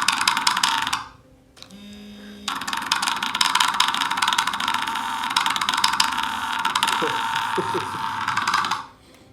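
A tiny cell-phone-style vibration motor with an offset weight, rattling a small piece of index card against a cup to make a loud, harsh buzz. It buzzes for about a second, stops, then starts again about two and a half seconds in and runs until just before the end.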